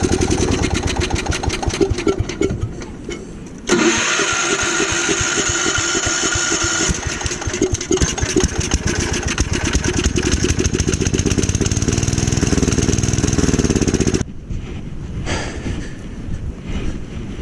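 Gravely Commercial 12 snow blower engine running, faltering about three seconds in and picking back up, then cutting off suddenly about fourteen seconds in. The engine has been hard to keep running, with a shrunken fuel line at the carburetor starving it of gas.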